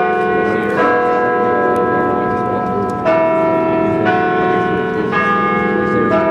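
Carillon bells of the Parliament Hill Peace Tower playing a slow tune: single bell notes of changing pitch struck about a second apart, with a longer pause after the third, each note ringing on under the next.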